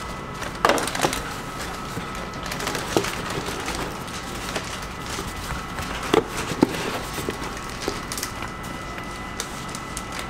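White cardboard cake boxes being handled: lids pushed on and boxes set down and stacked on a steel counter, giving scattered light taps and knocks, with the louder ones about a second in and twice near the middle, over a steady faint background tone.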